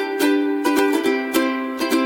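Background music: a bright tune of quick plucked-string notes, ukulele-like, at a steady pace.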